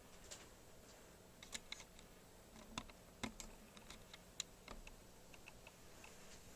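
Keys being pressed on the keyboard of a Smith Corona StarWriter Pro 5000 word-processing typewriter: short, irregular clicks, about a dozen over several seconds, with a faint steady hum underneath.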